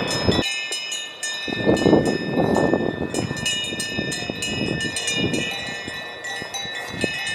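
Alpine cowbells clanking and ringing, several bells at once with overlapping high tones, starting about half a second in; faint voices underneath.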